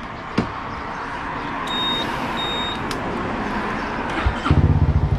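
Honda Forza 300 scooter giving two short high beeps, then its 279 cc single-cylinder engine starting from cold about four seconds in and idling with an even pulsing beat through an aftermarket exhaust freshly repacked with fibreglass.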